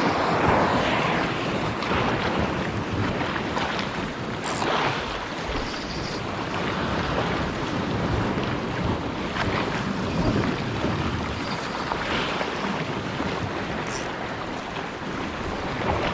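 Sea waves washing and surging, with wind on the microphone.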